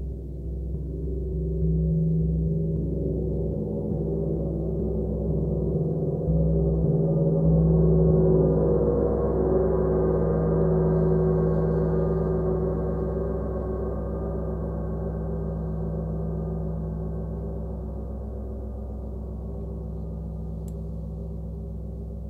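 A 36-inch Sun Gong played with felt-headed mallets: its deep, many-toned hum swells over the first several seconds, then rings on and slowly fades.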